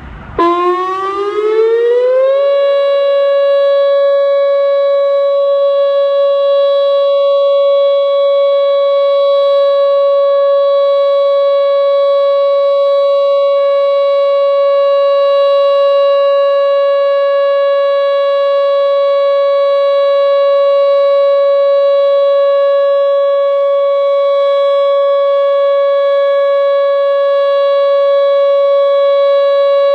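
Whelen WPS-2910 electronic tornado siren, driven by ten 400-watt speaker drivers, sounding its Alert signal in a test. It comes on loud about half a second in, rises in pitch for about two seconds, then holds one steady tone rich in overtones.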